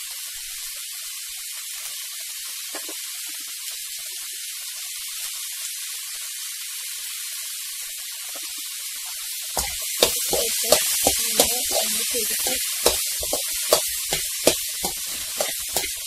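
Steady sizzling hiss of sprouted pulses, onion and tomato heating in a steel pan. About nine and a half seconds in, a metal spoon starts stirring them, scraping and clacking against the pan with rapid sharp strokes.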